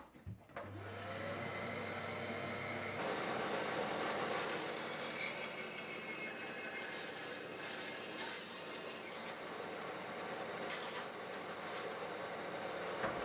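Scheppach HBS 300 bandsaw switched on with a click, its motor spinning up within about a second and then running steadily with its blade, which has just been damaged by hitting a nail. The noise gets louder about three seconds in.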